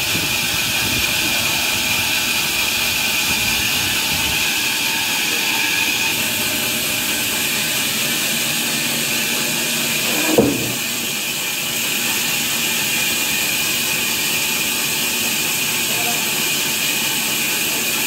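Large band sawmill blade running and cutting lengthwise through a big log, a steady hissing noise. About ten seconds in, a brief louder sound stands out.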